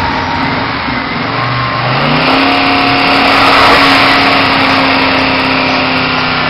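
Full-size SUV's V8 engine revving: the pitch climbs about two seconds in and is then held at high revs, loudest near the middle.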